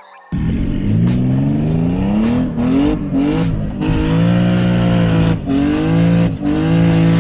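Homemade twin-turbo Infiniti G37's V6 engine accelerating hard, heard from inside the cabin. Its pitch climbs and drops back several times as it revs through the gears, then holds steady with a couple of brief dips.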